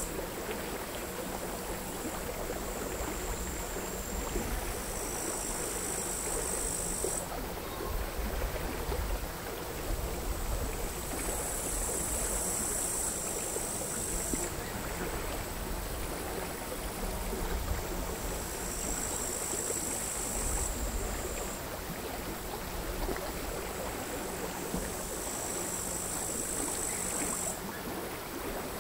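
Crickets singing: four high-pitched bouts of a few seconds each over a thin, steady high buzz. Underneath is the soft, irregular lapping of calm sea waves.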